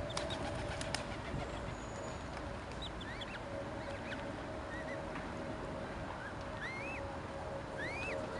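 Birds chirping outdoors: short rising calls, scattered and more frequent in the second half, over a steady background noise with a low, even hum.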